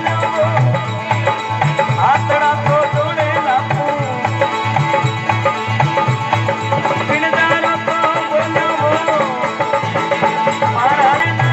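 Rajasthani folk devotional music (a Ramdev ji bhajan): a wavering, ornamented melody over a steady hand-drum beat.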